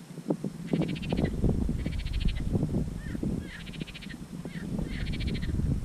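Water splashing and rustling as a small pike is landed in the shallows, with a deep rumble. A bird's rapid chattering call repeats about every second above it.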